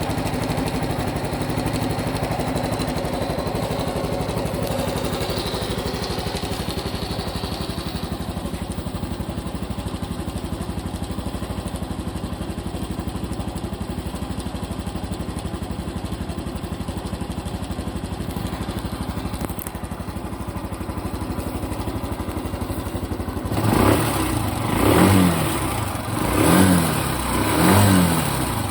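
Honda Super Cub Pro's air-cooled single-cylinder four-stroke engine idling steadily, then revved in about four short throttle blips near the end, roughly one every second and a half. The engine is being checked for an abnormal noise that an oil change meant to cure it has not removed.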